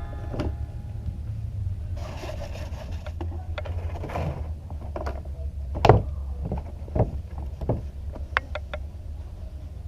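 Scattered knocks, taps and scraping from handling the broken-up fiberglass mold form, over a low steady hum; the sharpest knock comes about six seconds in.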